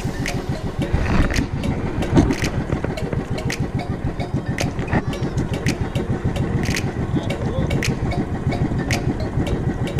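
A small engine running at a steady speed, its fast, even firing beat unbroken, with scattered sharp clicks over it.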